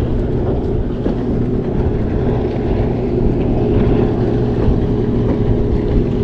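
Small fishing boat's motor running steadily with a constant hum, over a low rush of water and wind noise.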